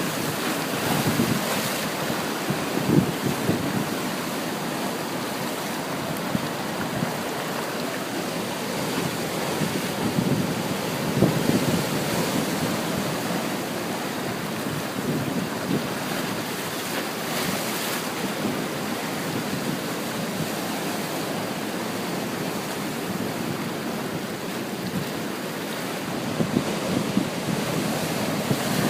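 Ocean surf washing steadily onto a beach, swelling louder with breaking waves a few times.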